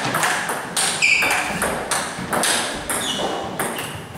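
Table tennis rally: the ball alternately cracking off the players' paddles and pinging off the table, a sharp click about every half second, some of them with a short ringing ping. The hits thin out near the end as the point finishes.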